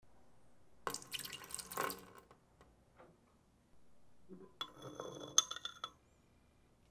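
Water splashing into a glass container in two short bursts, about a second in and again near five seconds. The second burst has a ringing clink of glass.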